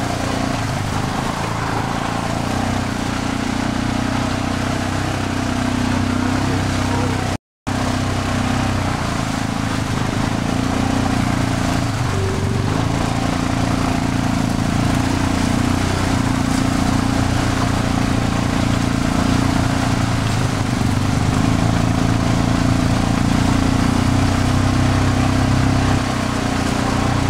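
Vehicle engine running steadily as it drives, a low, even drone. The sound cuts out for a moment about seven seconds in.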